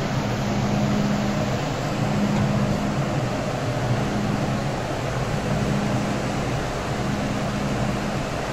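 Steady, loud background noise of an underground metro station platform, mostly ventilation and rumble. A low hum swells and fades about every second and a half.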